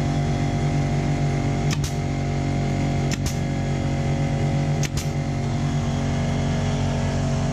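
Air compressor running with a steady pulsing hum. Over it come three sharp snaps about a second and a half apart, typical of a pneumatic nail gun firing into the wood.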